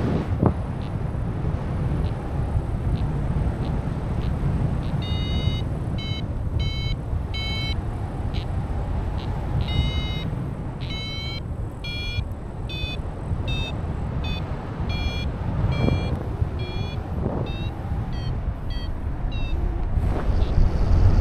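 Wind rushing over the microphone in flight. From about five seconds in, a paragliding variometer beeps: short pitched beeps, roughly two a second, shifting up and down in pitch, the tone a vario gives when the glider is climbing in lift.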